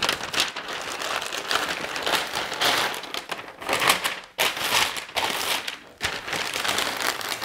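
Butcher paper crinkling and rustling in irregular bursts as it is folded and rolled tightly around a smoked brisket, with brief lulls about four and six seconds in.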